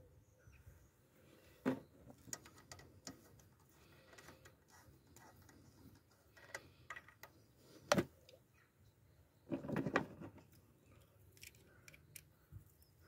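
Scattered small metallic clicks and knocks as hands handle the fuel lines and fittings around a diesel engine's high-pressure fuel pump. There is a sharper knock about 8 s in and a short cluster of handling noise just before 10 s.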